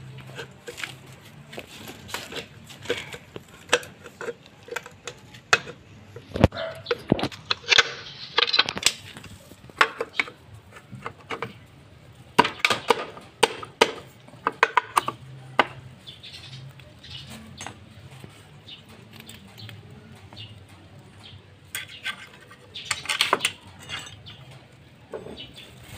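Irregular metal clinks, taps and rattles of hand tools and bolts against a motorcycle engine's left side cover as it is pressed back into place and fastened.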